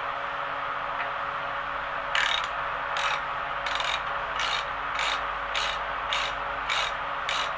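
Hand ratchet wrench clicking in short strokes, about one every two-thirds of a second from about two seconds in, as a manifold bolt is backed out. A fan hums steadily underneath.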